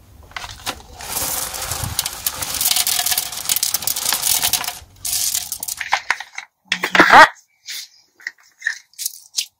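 Aquatic gravel pouring and rattling out of a plastic bag onto plants in a pond basket, a dense run of small stone clicks for about four seconds, then a shorter pour. About seven seconds in a brief louder scrape, followed by light handling clicks.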